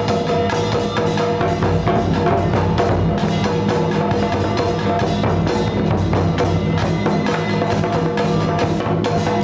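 Percussion-led music: rapid wood-block and drum strikes over sustained, steady tones, playing on without a break.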